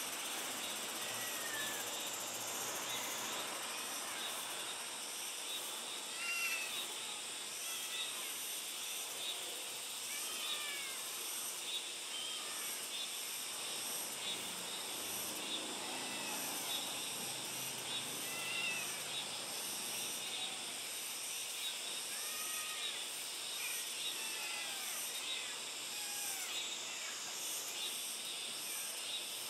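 Outdoor ambience: a steady high insect hiss, with short, arching bird chirps, often in pairs, scattered throughout.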